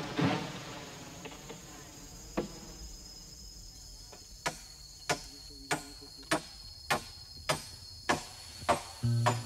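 Insects shrilling steadily in the forest, with a run of about eight sharp, evenly spaced knocks a little over half a second apart starting about halfway through.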